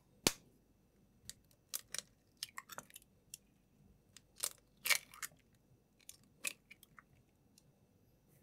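Eggs being cracked over a bowl: a sharp tap of a knife against an eggshell about a quarter second in, then several clusters of crackling and snapping as the shells are broken open and pulled apart by hand.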